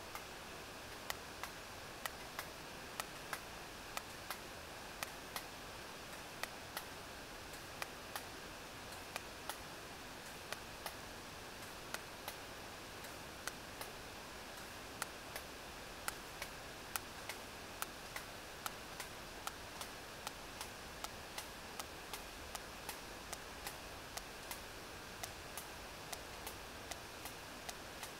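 Sperm whale echolocation clicks picked up by a deep-water hydrophone: sharp, uneven clicks about two a second over a steady hiss.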